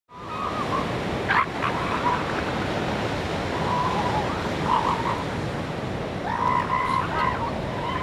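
Ocean surf washing steadily onto a rocky shore, with short animal calls sounding over it several times.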